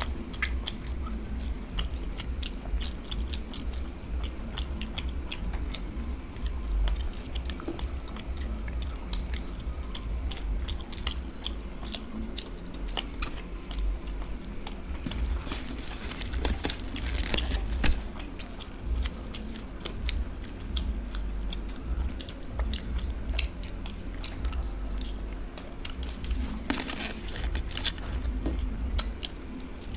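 Two people eating luchi (deep-fried puffed bread) and egg curry by hand: close-up chewing and the crackle of the fried bread being torn, as irregular small clicks, thicker in a couple of spells. A steady high-pitched whine sits underneath.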